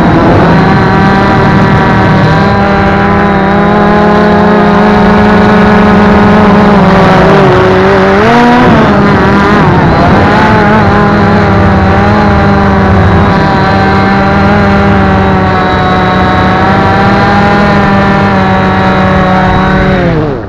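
Small engine of the vehicle carrying the camera, running steadily at high revs. Its pitch drops and climbs back about eight seconds in, then it dies away at the very end.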